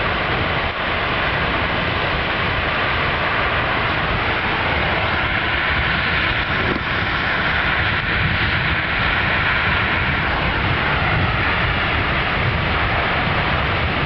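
Beehive Geyser erupting: a loud, steady rushing roar of water and steam forced out of its cone.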